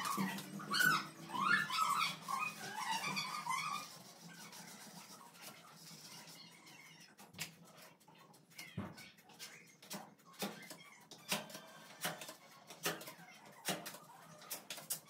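A dog whimpering and whining in high, wavering cries for the first few seconds, then scattered light clicks and taps.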